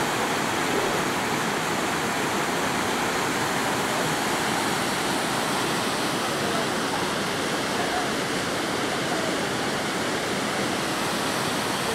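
The Nive river rushing through rapids below: a steady, even rush of white water.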